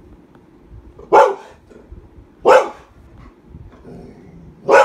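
A dog growling low, broken by three short, loud barks spaced a second or two apart.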